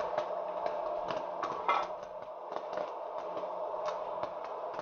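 SMART Retro Mini hot air popcorn maker running with its lid off: a steady fan blowing and a low hum, with kernels popping in irregular sharp pops. A louder knock comes a little under two seconds in.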